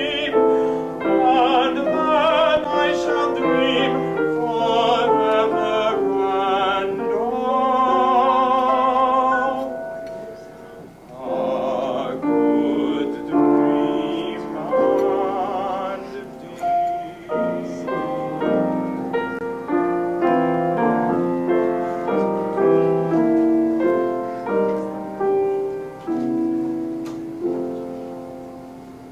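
A grand piano played with an operatic-style singing voice, the held notes wavering with vibrato. The music dips briefly about eleven seconds in and fades near the end.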